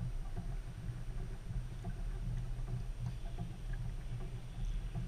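Muffled, steady low rumble of water and wind against a kayak, heard through a GoPro's waterproof housing.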